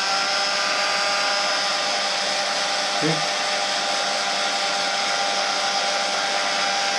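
Heat gun blowing steadily at full speed, a constant whirring hiss with a fixed motor whine, used to heat stretched black vinyl wrap so it shrinks back into shape.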